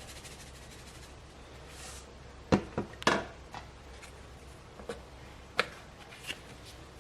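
A few short, sharp knocks and clicks of household objects being handled and set down, spaced irregularly over a faint steady hiss.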